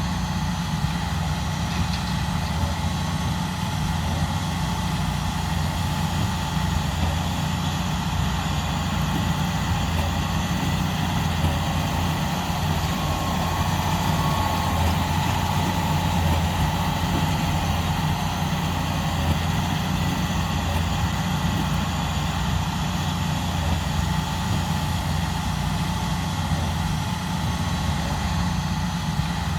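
Diesel engine of a John Deere 8RX tracked tractor running steadily, a low, even drone with no change in speed.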